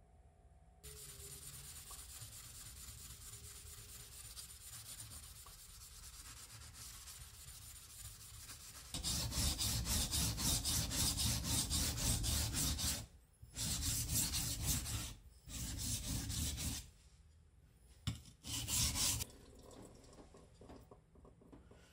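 Steel deba knife blade being stroked back and forth by hand on a whetstone: a grinding scrape, soft at first, then loud quick strokes from about nine seconds in, in several runs with brief pauses, stopping about three seconds before the end.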